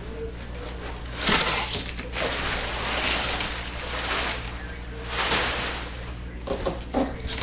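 Rummaging inside a large cardboard box: three stretches of rustling and scraping, each a second or two long, as items are felt for among the packing. A few light knocks come near the end.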